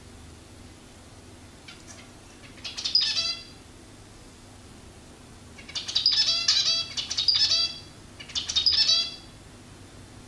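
Zebra finch calling: three runs of quick nasal notes, the first about two and a half seconds in, a longer one from about six seconds, and a short one near the end.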